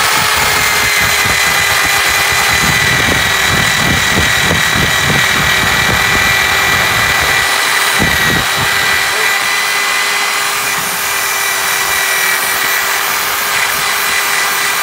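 Electric drill running with a wire brush, scouring rust off a cast iron wheel. The motor gives a steady whine while the brush grates against the metal, rougher and more uneven through the first half.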